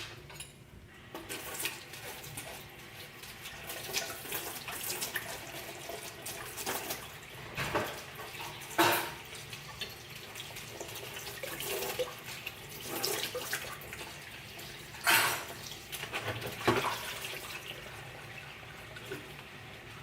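Kitchen tap running into a sink during washing-up, with a few sharp knocks and clinks of dishes, the loudest about nine and fifteen seconds in.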